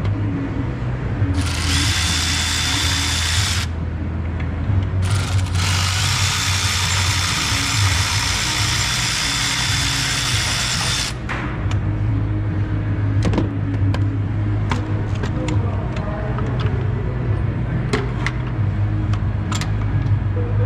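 Power drill running in two bursts, a short one and then a longer one of several seconds, with a steady motor whine, likely spinning fasteners during alternator removal. A steady low hum runs underneath, and after the drill stops there are scattered light clicks and clinks of metal.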